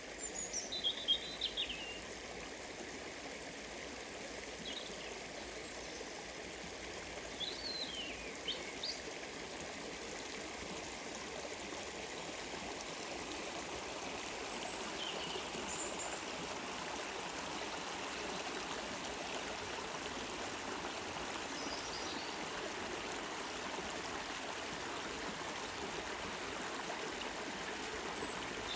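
Stream water flowing steadily, an even, continuous wash of water. Short chirps of small birds come through now and then, most clearly in the first few seconds and again around eight seconds in.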